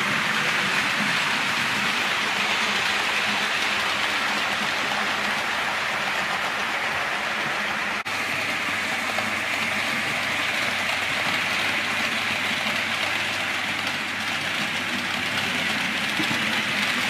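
Model train running on the layout's track: a steady rumble of small metal wheels on the rails with a faint motor hum, broken by a brief dip about eight seconds in.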